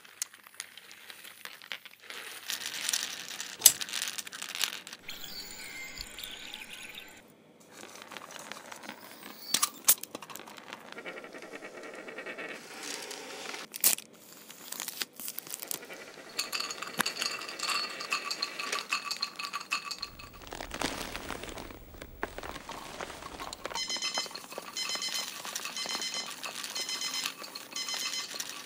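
A string of small handling sounds from lab bench work: sharp clicks, clinks of glass and plastic, and crinkling. Near the end a digital lab timer beeps in a fast, evenly repeating pattern.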